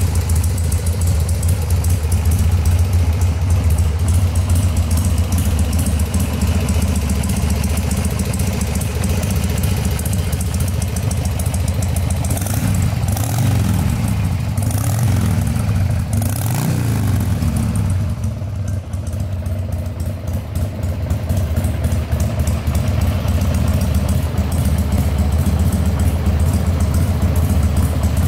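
Harley-Davidson Sportster 1200's air-cooled V-twin engine idling steadily. About halfway through, the revs rise and fall a few times as the throttle is blipped.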